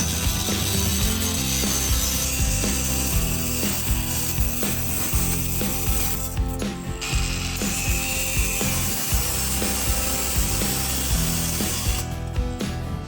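A workshop tool at work: a continuous noisy mechanical sound that breaks off briefly about six seconds in and again near the end.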